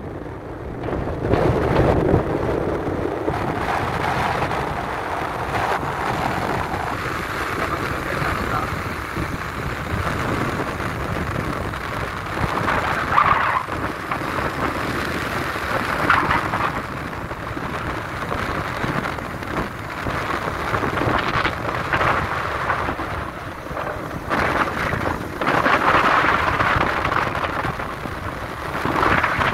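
Wind buffeting the microphone outdoors, a rushing noise that swells and dies down in gusts every few seconds.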